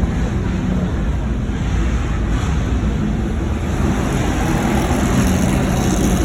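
Car engines running, mixed with wind rushing on the microphone; the engine note and overall level rise a little in the second half.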